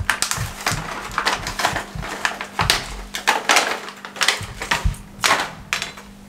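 Plastic blister packaging of a set of small stainless-steel cookie cutters being crinkled and torn open: a run of sharp, irregular crackles that stops near the end.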